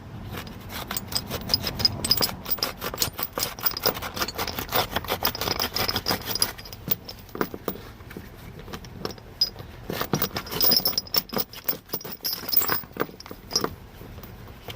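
Serrated edge of a Spyderco Tenacious G10 folding knife sawing back and forth through a thick truck tie-down strap: a continuous run of rapid, irregular rasping scrapes and clicks.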